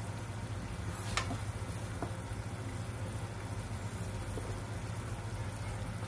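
Broccoli blanching in bubbling water in a frying pan, stirred with a nylon slotted spatula that clicks lightly against the pan about a second and two seconds in, over a steady low hum.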